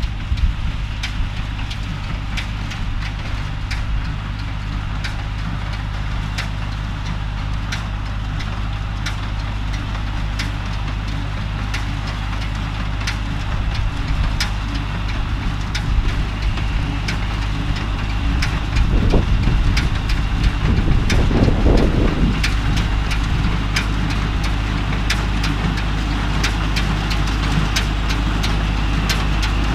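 Diesel tractor engine running steadily while pulling a small square hay baler, with the baler's mechanism clacking regularly, about once or twice a second. A louder, noisier stretch comes about two-thirds of the way through.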